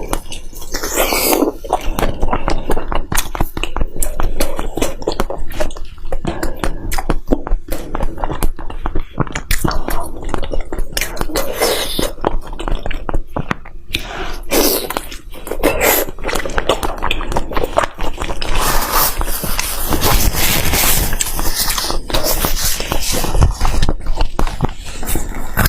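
Close-miked chewing and biting of food, with rapid, irregular wet smacking clicks from the mouth throughout.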